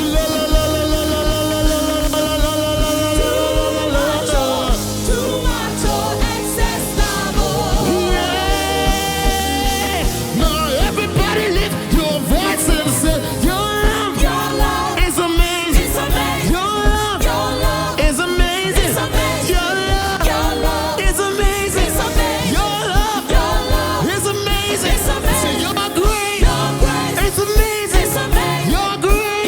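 Live gospel band music with singing: long held vocal or keyboard notes at first, then a melody over a steady drum beat.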